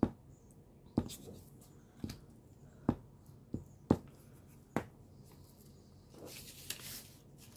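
A squeeze bottle of white craft glue tapping against a paper strip and the tabletop as glue is dabbed on: about seven sharp taps over the first five seconds, roughly one a second. Then soft paper rustling near the end as the glued strip is picked up.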